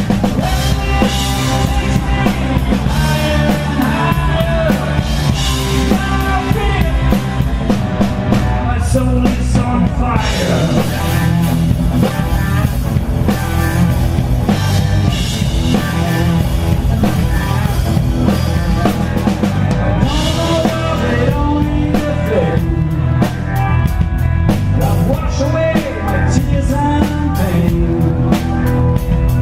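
Live blues-rock band playing a rock song, with drum kit, bass and electric guitar.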